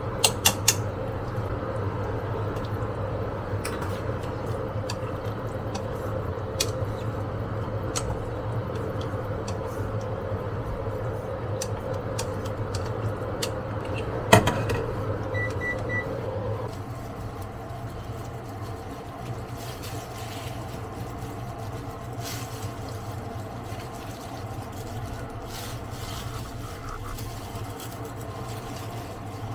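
A kitchen appliance runs with a steady hum. About halfway there is a sharp click, then three short electronic beeps, and a second later the hum drops off to a lower background drone. A few light clicks come right at the start.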